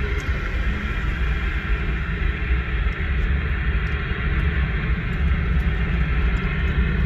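Car engine and tyres rumbling steadily inside the cabin as the car drives slowly, with a constant hiss over it.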